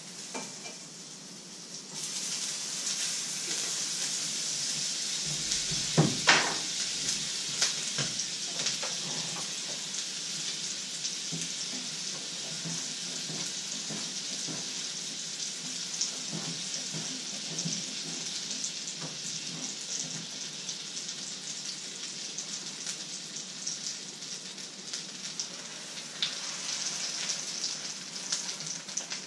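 Oil and pancake batter sizzling in a hot frying pan, a steady hiss that starts suddenly about two seconds in, with a few clinks of utensils and pans about six seconds in. The sizzle grows louder near the end as fresh batter goes into the pan.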